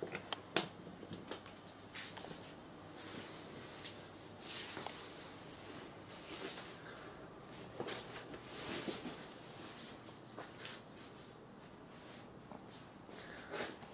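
Cats scuffling and moving about, with soft rustling and a few sharp knocks about half a second in. No meowing.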